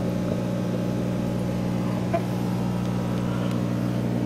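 Steady low electric hum of running aquarium equipment, with a couple of faint small clicks.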